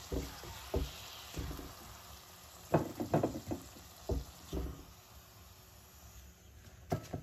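A metal fork knocking and scraping against a stainless steel frying pan as fried bammy pieces are lifted out, a cluster of knocks about three seconds in, over a faint sizzle of oil that fades after about five seconds.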